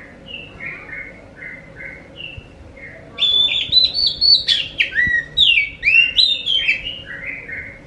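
Oriental magpie-robin (kacer) singing. It opens with soft, spaced chirps, then about three seconds in breaks into a loud, varied run of clear whistled notes and quick sweeping phrases for about four seconds.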